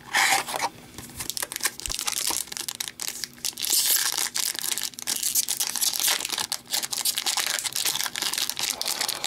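Foil wrapper of an Upper Deck hockey card pack crinkling and crackling as it is handled, with denser rustling from about three and a half seconds in.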